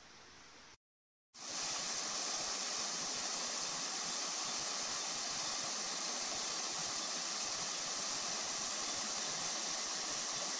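Faint quiet ambience, a brief gap of silence about a second in, then the steady rush of flowing creek water.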